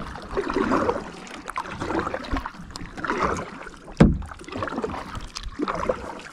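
Kayak paddle strokes dipping and splashing through pond water, a swish every second or two, with one sharp low thump about four seconds in.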